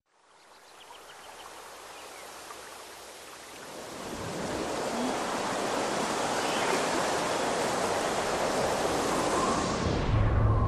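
Rushing water, like a waterfall, fading in and growing louder about four seconds in, then cutting off near the end as a few faint tones come in.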